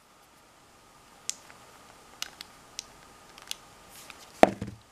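Scattered light clicks and taps from a phone being handled, then a louder knock near the end as it is set down on the cloth-covered work surface.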